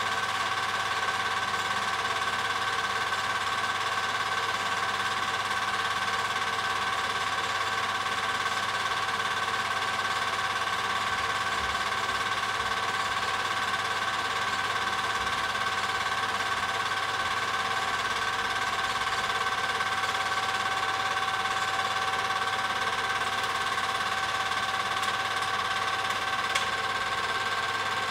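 Film projector running with a steady mechanical whir and hum. A single short click comes near the end.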